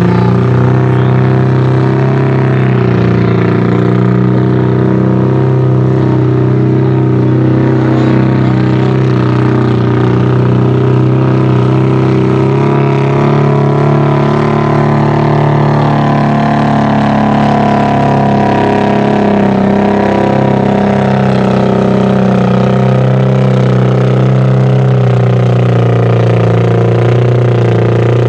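Chevrolet S-10 pickup's engine held at high revs as the truck works through deep mud, a loud steady note that sags and climbs slightly without letting up.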